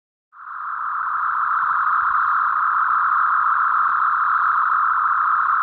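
A single steady high tone starts abruptly out of dead silence just after the start and holds at one pitch without wavering.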